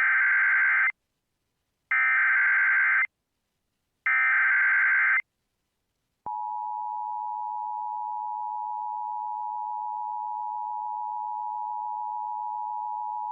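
Emergency Alert System SAME header: three one-second bursts of warbling digital data tones, each about two seconds apart. About six seconds in, the steady two-tone EAS attention signal (853 and 960 Hz) starts and holds. The header is coded as a Civil Danger Warning although the message is a required monthly test.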